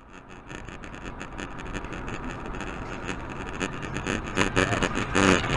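Car driving along a highway, its road and engine noise heard from inside the cabin, growing steadily louder.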